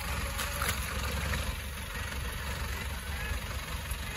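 A vehicle engine running steadily, a low rumble under an even noisy hiss.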